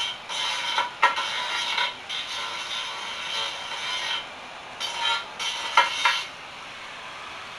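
Irregular scraping and clattering of metal being worked, with a few sharp knocks. It stops about six seconds in, leaving a steady, quieter hiss.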